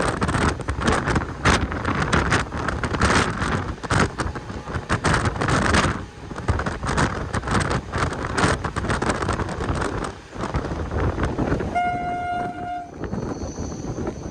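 A moving train clattering and rattling along the track, with a single horn blast lasting about a second near the end.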